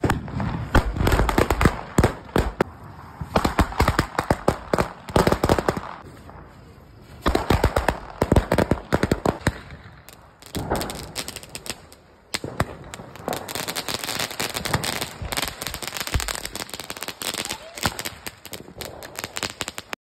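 Firecrackers going off in rapid runs of sharp bangs and cracks, several runs of two to three seconds each with short pauses between.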